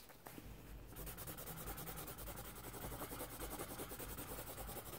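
Pencil shading on paper: quick, even back-and-forth scratching strokes, faint and steady, starting about a second in.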